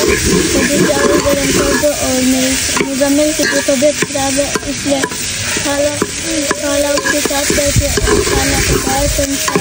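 A steel ladle stirs and scrapes an onion-and-ghee masala frying in an aluminium pot. There is a steady sizzle, and the ladle clicks and grinds against the pot's metal sides again and again.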